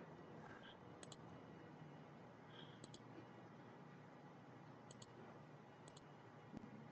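Faint computer mouse clicks over quiet room tone: four quick double-clicks spread over the few seconds.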